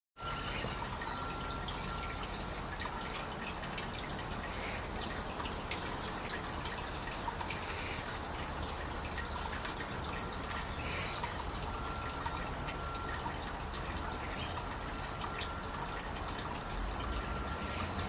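Water trickling steadily from a bamboo spout, with a few short, high bird chirps scattered through it.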